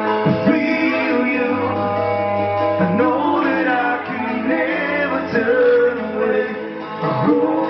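Live band performance: a man sings over strummed acoustic guitar and keyboard.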